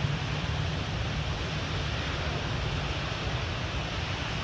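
Ocean surf breaking in a steady wash of noise, with wind buffeting the microphone in low, uneven rumbles.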